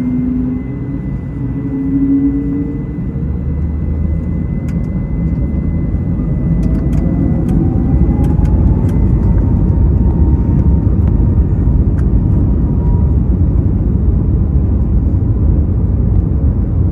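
Airbus A321neo's Pratt & Whitney geared turbofans spooling up to takeoff thrust, heard from inside the cabin. A whine rises in pitch over several seconds and then holds steady, over a rumble that grows louder as the takeoff roll gets under way, with a few faint clicks.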